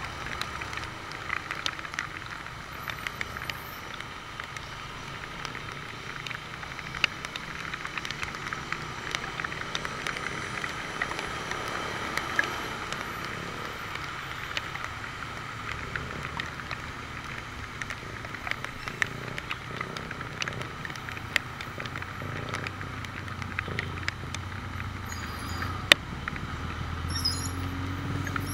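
Raindrops striking the camera housing as many small irregular clicks over a steady hiss of rain and wet road, with a low engine rumble from the motorcycle and surrounding traffic that grows louder near the end.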